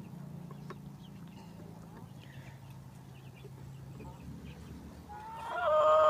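Domestic chicken calling: after a quiet stretch, a drawn-out, rising call starts about five seconds in and grows loud.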